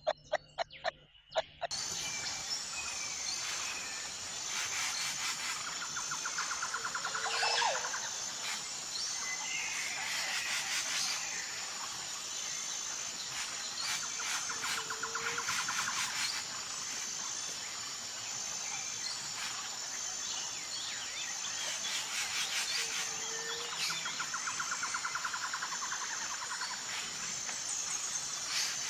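Outdoor nature ambience: insects trilling steadily at a high pitch, with birds calling and chirping over it. A short run of quick clicks comes in the first second or so.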